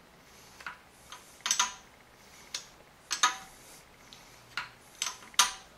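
Steel wrench clicking and clinking on a bolt at the front of a BMW M52 engine block as it is turned in short strokes: about eight sharp metallic ticks at uneven spacing, some in quick pairs.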